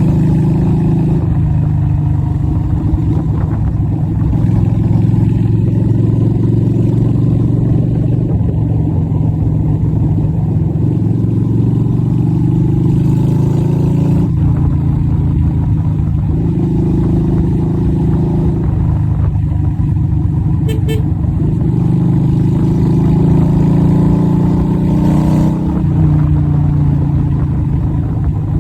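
Yamaha Virago XV250's small air-cooled V-twin running through a straight-through exhaust while riding. Its note climbs and then drops sharply several times.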